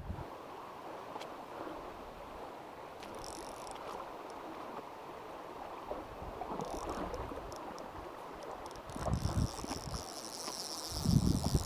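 Shallow stream water running steadily, with insects chirping in high pulsing trills that come and go and grow stronger near the end. Two loud low bumps on the microphone, about nine and eleven seconds in.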